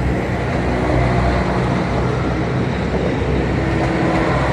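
Tsugaru Railway diesel railcar running steadily, a constant low engine hum with track and running noise over it.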